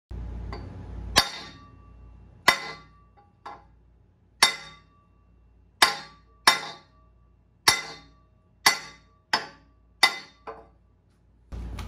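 Hand sledge striking a 2-inch steel pipe against a sleeve puller: about eleven sharp, ringing metal blows at uneven intervals, roughly one a second. The blows are driving to shock loose the rusted-in cylinder sleeve of a McCormick-Deering 6 HP engine.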